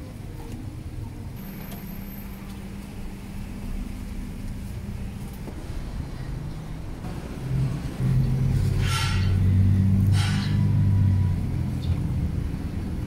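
A road vehicle's engine running close by, swelling louder about eight seconds in, with two short hisses about a second apart.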